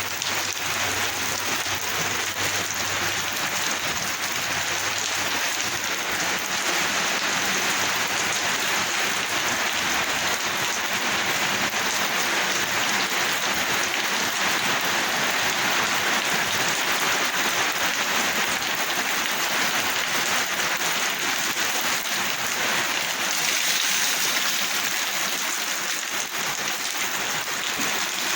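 Rain falling steadily, a dense, even hiss that doesn't let up.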